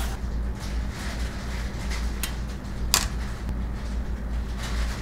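A finger-prick lancing device clicking twice, about three-quarters of a second apart, the second click the louder, over a steady low hum.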